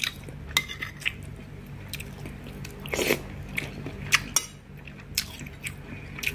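A metal spoon clicking and scraping against a plate while scooping rice and curry, with close-up chewing and biting; one louder mouthful about halfway through.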